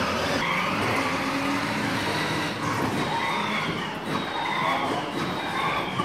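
Battery-powered Power Wheels ride-on pickup truck driving across a concrete floor: a steady motor and gearbox drone with repeated short, falling squeals.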